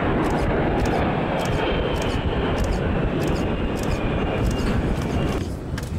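A-10 Thunderbolt II's twin TF34 turbofan engines passing overhead: a steady jet rush with a thin high whine. The sound thins out suddenly near the end.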